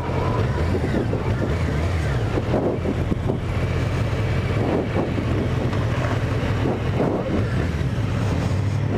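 Honda Nighthawk 650's inline-four engine running steadily while riding, with wind noise on the microphone.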